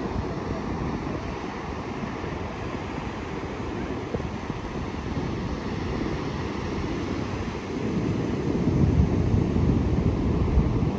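Wind on the microphone over beach surf: a steady low rush that swells louder about eight seconds in.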